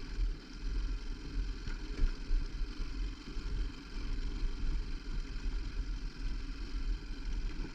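Hardford VR 150 single-cylinder motorcycle engine running, with a steady low rumble that rises and falls unevenly.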